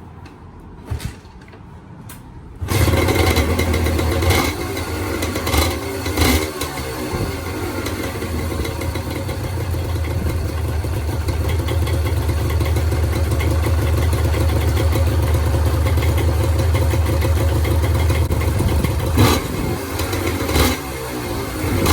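Honda NS250R's two-stroke V-twin on its stock silencers starting up about two and a half seconds in, after a couple of faint clicks. It is blipped a few times, then settles into a steady idle, with more short throttle blips near the end.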